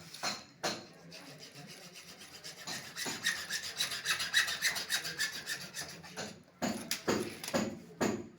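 Hand tool rasping back and forth against a pipe: a run of quick, even scraping strokes, then a few slower, louder strokes near the end.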